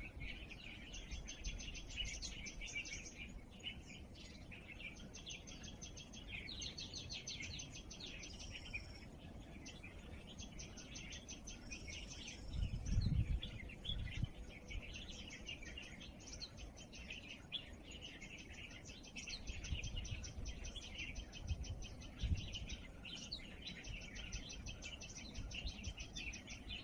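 Birds chirping and singing in the countryside, with repeated high, rapid trills lasting a second or two each. A few low rumbles come and go, the loudest about halfway through.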